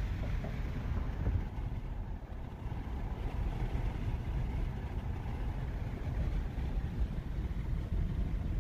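Ford Super Duty pickup truck driving, a steady low mix of engine and tyre noise heard from inside the cab.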